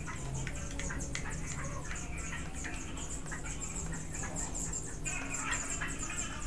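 Small clicks and rattles of hard plastic as an MJX Bugs 3 drone's arms and parts are handled during assembly, over a steady low hum and a high, fast, evenly repeating chirping.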